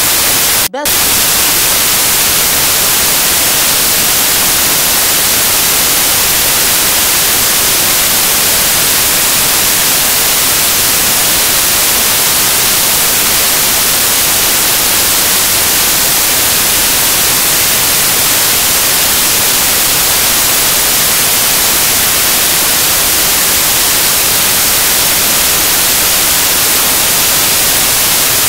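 Loud, steady static hiss like white noise on the soundtrack, with one very brief dropout just under a second in.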